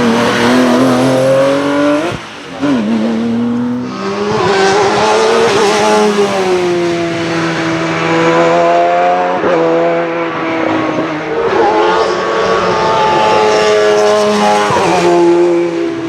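Hillclimb race car engine running hard under acceleration, its pitch climbing and then dropping sharply at each of several gear changes.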